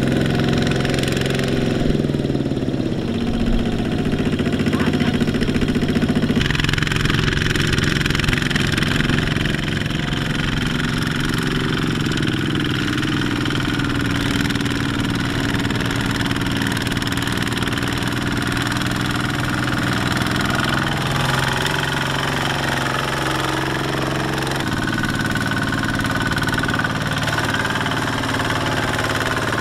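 Single-cylinder Kubota diesel engines of two-wheel walking tractors running under load, hauling loaded trailers through mud. The engine note changes abruptly about six seconds in and again near the end.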